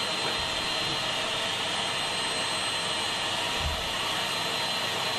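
Vacuum cleaner running steadily with a high whine, its hose being worked over a pipe organ windchest. A brief low bump about two-thirds of the way in.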